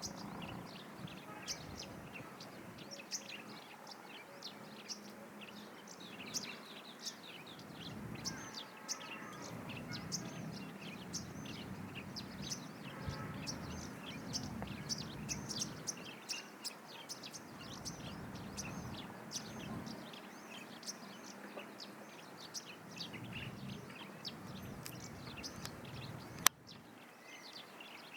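Many small birds chirping continuously in a dense chorus of short, high chirps. A single sharp click about 26 seconds in is the loudest sound, after which the background is quieter.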